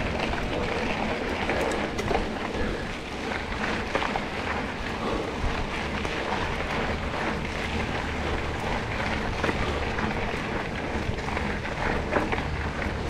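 Off-road vehicle running along a muddy trail, heard as a steady rush of noise with wind buffeting the microphone and scattered small clicks and spatters.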